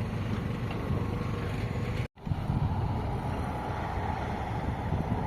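Tractor diesel engine running steadily, with wind buffeting the microphone. The sound cuts out for an instant about two seconds in, then carries on.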